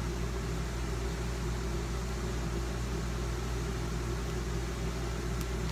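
A steady low hum with a faint click near the end.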